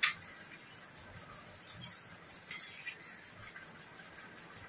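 A sharp metal clink at the start, then faint scraping of a metal spoon against a stainless-steel bowl as dal is served, with one louder short scrape about two and a half seconds in.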